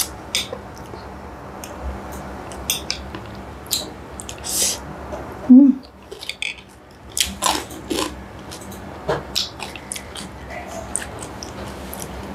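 Close-miked eating sounds of spicy noodle soup: wet chewing and lip smacks in short clicks, with a short sucking hiss about four and a half seconds in and a brief closed-mouth hum just after, as the heat of the chilli hits.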